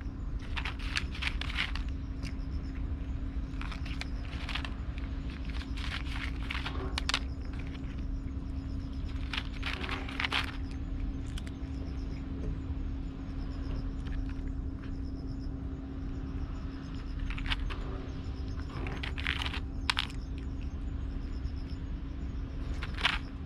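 A cat crunching dry food, in short bursts of chewing every few seconds, over a steady low hum.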